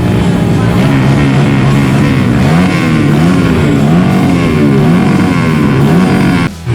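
Rock background music with guitar, playing loud and steady, with a brief break near the end.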